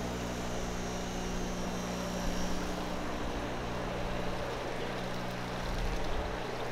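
Steady mechanical hum and rush of aquarium filtration equipment (air pumps and filters) running, a constant drone with a low electrical hum under it.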